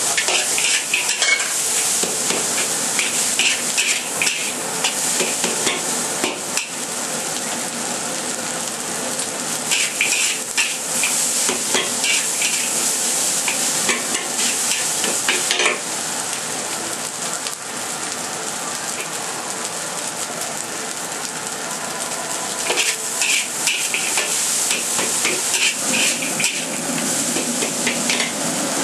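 Fried rice sizzling steadily in a hot wok, with a metal spatula scraping and clinking against the wok in several spells of stirring.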